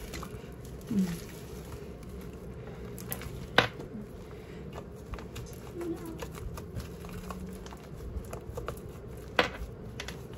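Slime mixed with shaving foam being kneaded and stretched by hand: soft squishing and fine sticky crackles, with two sharper clicks.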